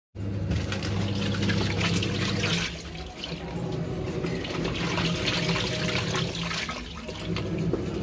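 Onida 6.5 kg fully automatic top-load washing machine churning a load of clothes in water, with sloshing and splashing over a steady low hum; the water noise eases briefly about three seconds in and again near seven.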